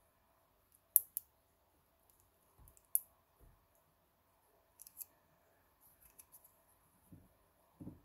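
Sharp metallic clicks from a multi-wire lever-lock picking tool worked inside a brass padlock: a loud pair about a second in, single clicks and another pair a few seconds later, with soft handling knocks between.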